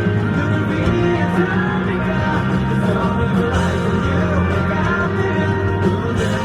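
Live rock band music, with a male lead vocalist singing over the band.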